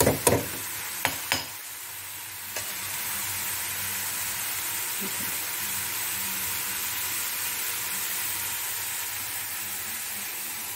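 Curry masala of onion, tomato paste and ground spices frying in plenty of oil in a kadai, with a steady sizzle. A spatula knocks and scrapes against the pan a few times in the first second and a half, and once more a little later.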